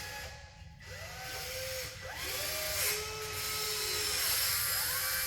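Small electric motors of radio-controlled model construction machines whining, several at once, each rising in pitch as it starts, holding and falling as it stops, over a steady hiss.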